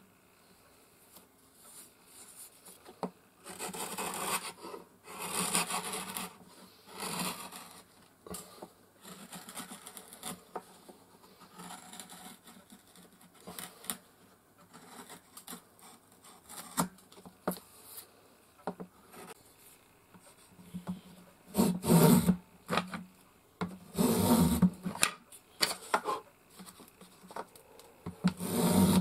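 A wide chisel paring thin shavings from the edge of a small hō (Japanese magnolia) wood panel: a series of short scraping strokes. In the last third, louder and longer strokes come from a small metal hand plane cutting along the edge.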